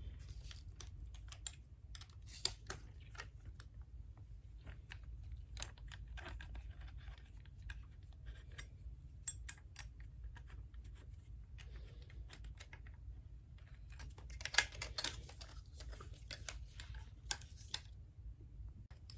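Irregular small clicks and taps of hands working parts as the bottom fitting is unscrewed from a balance bike's handlebars, with a denser flurry of clicks about two-thirds of the way through.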